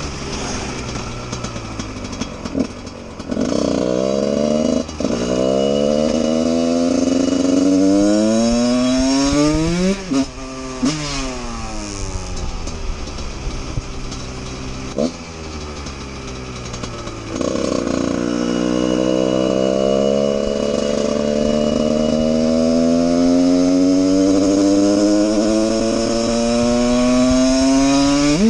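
Husqvarna 144 SMR supermoto's engine heard from on the bike, revving up through the gears with quick shifts, then dropping back as the bike slows. About two-thirds of the way in it pulls again in one long, steadily rising rev.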